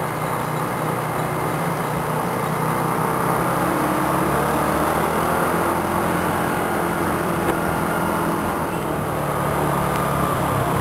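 Small motor scooter engine running steadily under way through street traffic, with the road and engine noise of other scooters and cars around it.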